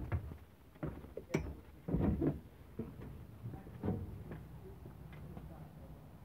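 Irregular knocks, thumps and a few sharp clicks of a motorhome's entry door being opened and someone stepping out and down, heaviest in the first four seconds and quieter after.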